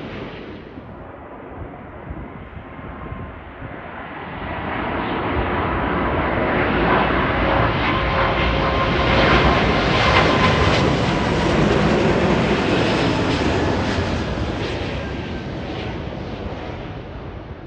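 British Airways Boeing 777-200ER on final approach with gear down, its jet engines passing low overhead: the rushing roar builds from about four seconds in, is loudest around the middle, and fades near the end.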